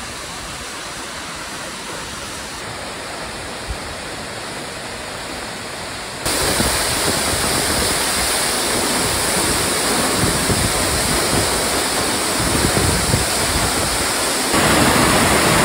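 Goriuda waterfall rushing in a steady roar of falling water. It jumps suddenly louder about six seconds in and again near the end.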